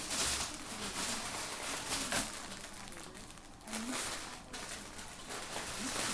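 Rustling and crinkling of yarn skeins and their packaging being handled, in uneven bursts with a short lull about three and a half seconds in.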